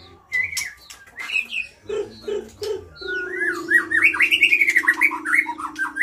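Caged white-rumped shamas (murai batu) singing: loud whistled phrases with sharp clicks, turning in the second half into a fast run of rising and falling notes. Three low notes sound about two seconds in, and a low steady hum runs beneath the fast run.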